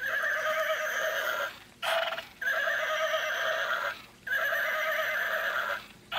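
Electronic walking unicorn toy playing its recorded horse-neigh sound effect through its small built-in speaker, in four bursts with short gaps between them. The sound has nothing in the low range.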